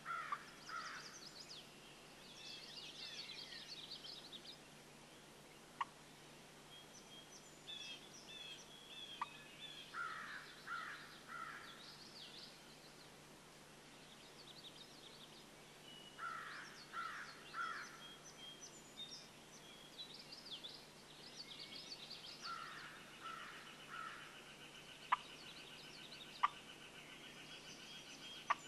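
Wild turkey calling in short runs of three or four yelping notes, four times over, with small songbirds chirping throughout. A few sharp clicks come near the end, and these are the loudest sounds.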